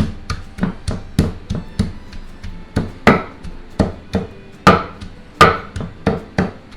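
Cabbage being struck over and over, as in pounding or chopping it for sauerkraut: sharp knocks about two a second, some much louder than others.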